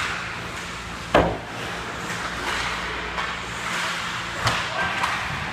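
Ice hockey play around the goal: skate blades scraping the ice, with a loud sharp knock of puck or stick about a second in and a smaller knock about four and a half seconds in.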